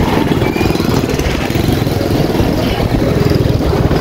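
Motorbike engine running with a steady rumble.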